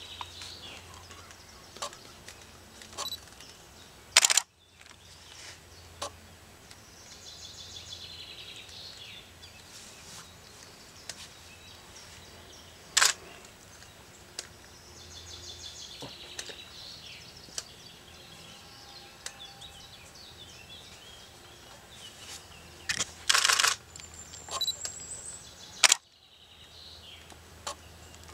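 Small woodland birds singing in short high warbling phrases, broken by a few loud sharp clicks: one about four seconds in, one midway, and a short cluster and another click near the end.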